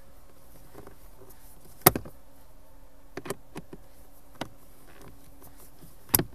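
Two sharp clacks, one a little under two seconds in and one near the end, with a few lighter ticks between: a tool knocking against the plastic screws and trim as they are undone to drop a car's heater blower motor. A faint steady hum runs underneath.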